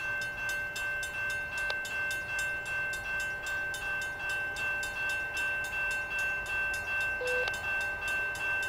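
Railroad crossing bell ringing with rapid, evenly spaced strikes, its ringing tones held steadily between strokes.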